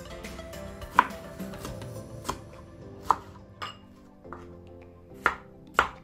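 Chef's knife slicing green tomatoes on a cutting board, with about seven sharp knocks of the blade on the board at uneven intervals, the loudest about a second in. Soft background music plays underneath.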